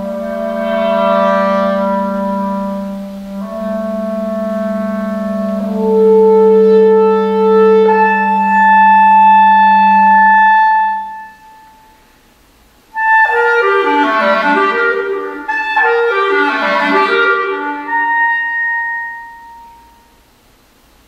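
Clarinet with live electronics: long held notes sound over a low sustained drone. After a short break, two quick falling cascades of layered notes follow, and a high held note fades out near the end.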